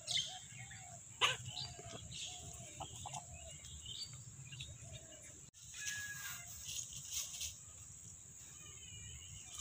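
Free-range chickens foraging in dry straw: short soft clucks and a couple of sharp clicks, with other birds calling and a steady high-pitched whine behind. The sound cuts out for an instant a little past halfway.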